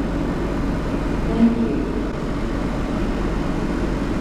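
Steady low rumble of busy train-station ambience, with a brief faint murmur of distant voices about a second and a half in.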